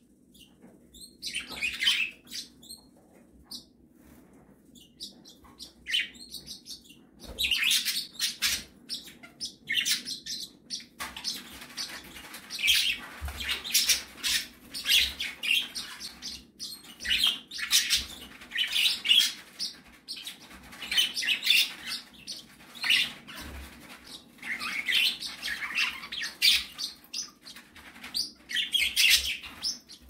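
Cockatiel bathing in a shallow dish of water: repeated bursts of splashing and wing fluttering, with chirping. The bursts are sparse at first and come in near-continuous clusters from about a third of the way in.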